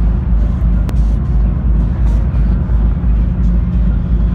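Loud, bass-heavy electronic dance music from a festival sound system, heard muddied on a phone's microphone, with one sharp pop about a second in.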